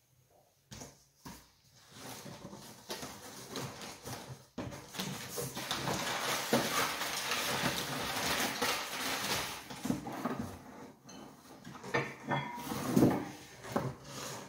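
Cardboard box flaps being opened and crumpled brown packing paper rustling steadily as a parcel of car parts is unpacked, followed near the end by a few louder knocks and bumps as parts are lifted out of the box.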